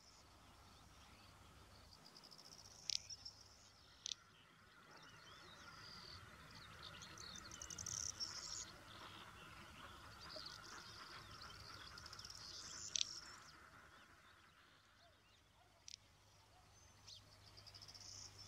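Faint countryside ambience: insects and small birds trilling and chirping high and steadily. A few short, sharp snaps stand out, about three and four seconds in, again near thirteen seconds, and near sixteen seconds.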